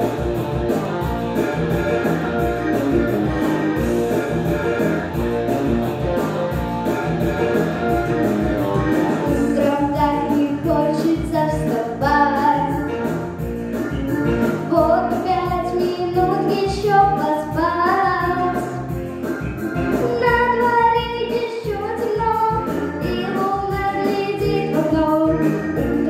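Pop backing track with a steady beat; about ten seconds in, a young girl's voice starts singing over it.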